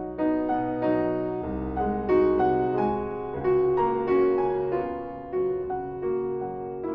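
Background piano music: a slow melody of single notes and chords, each note struck and then fading.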